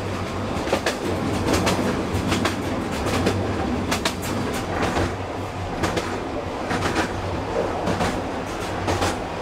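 Narrow-gauge passenger carriage running along the track, heard from inside by an open window: a steady rumble and rattle, with repeated clacks of the wheels passing over rail joints.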